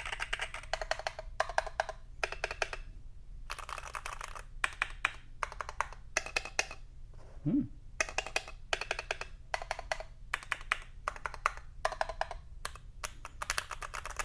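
Modded iLovBee i61 budget mechanical keyboard, on its stock switches and dampened with blue tack and tape, being typed on in quick bursts of keystrokes with short pauses between them.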